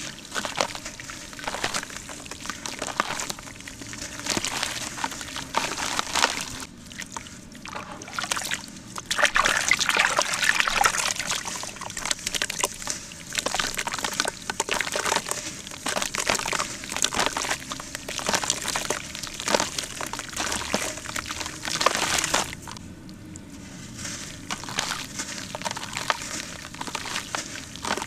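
Hands crumbling dry cement into a bucket of water and kneading the wet cement paste: a busy run of small crumbling clicks with water sloshing and trickling, louder for a few seconds near the middle.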